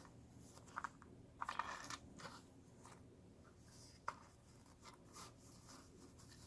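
Faint rustling and scraping of a cloth dust bag being handled as a small leather pouch is slipped out of it: a few short, crisp rustles a second or more apart, the loudest cluster about a second and a half in, with a sharp tick around four seconds.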